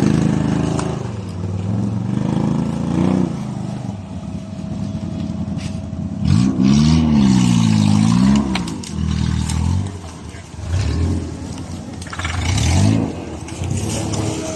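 Off-road 4x4 engine revving in repeated bursts, the pitch rising and falling, with the longest and loudest rev about six to eight seconds in.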